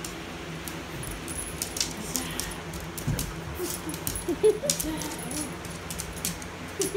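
Two dogs, a husky and a small dog, playing: their collar tags jingle and clink over and over, with a few short dog whines about four seconds in.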